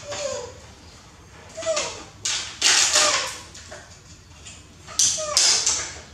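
Short high squeaks from baby monkeys, mixed with bursts of plastic crinkling, loudest about two to three seconds in and again at about five seconds.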